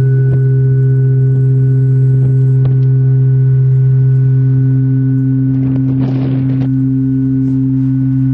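A large church bell humming as it rings out after a strike: a deep, steady tone with a few higher tones above it, holding its level without a new blow. A brief rustling noise about six seconds in.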